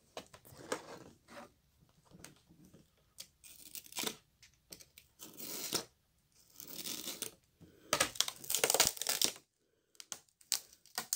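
Thin plastic film being peeled and torn off a cracked LCD panel, in irregular crinkly bursts, the longest and loudest near the end, followed by a few light clicks.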